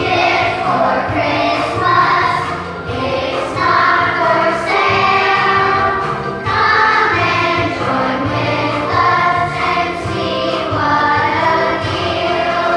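Children's choir singing a Christmas song over instrumental accompaniment.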